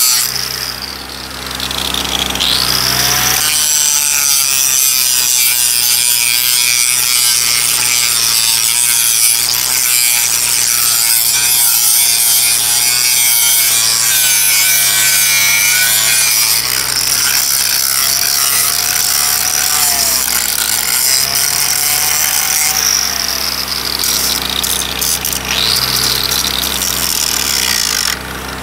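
Angle grinder grinding down a weld on a steel railroad switch point: a steady high whine with the rasp of the disc on the steel. Its pitch sags and recovers briefly about two seconds in and again near the end.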